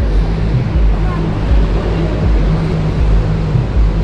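Rainy city street ambience: steady traffic rumble and tyre hiss on wet road, with a heavy, uneven low rumble of wind on the microphone.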